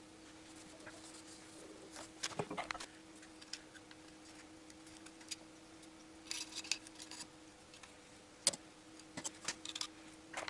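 Light, scattered metal clicks and scrapes as the aluminium camshaft bearing cap housing of a VAZ 8-valve cylinder head is handled and wiped clean with a rag, with a few sharper taps near the end. A faint steady hum sits underneath.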